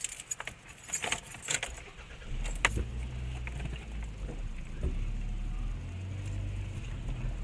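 Car keys jingling and clicking at the ignition, then the car's engine starts about two and a half seconds in and keeps running steadily.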